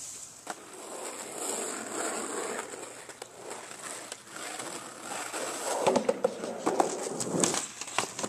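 Skateboard wheels rolling over rough ground, with several sharp clacks and knocks of the board near the end.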